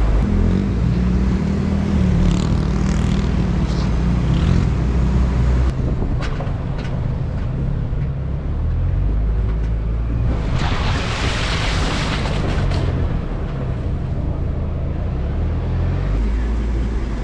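GMC Canyon pickup driving off-road, its engine running and shifting pitch up and down as the throttle changes. There are scattered clicks and knocks in the first half, and a few seconds of hiss about ten seconds in.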